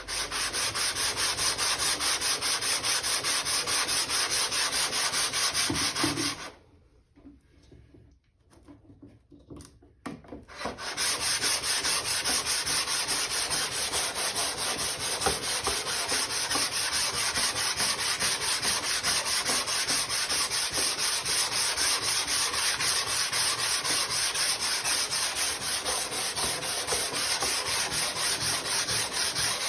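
The cast-iron sole of a Windsor Design No.33 hand plane is being rubbed back and forth on sandpaper over glass, a steady, gritty rasping of repeated strokes as the sole is lapped flat. The strokes stop about six seconds in and start again about four seconds later.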